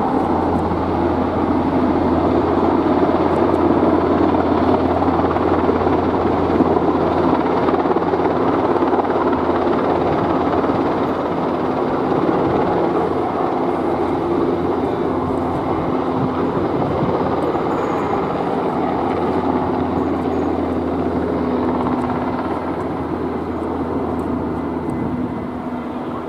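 Military Cougar helicopter flying overhead with a slung fire bucket: a loud, steady rotor thrum over turbine noise, easing off slightly near the end as it moves away.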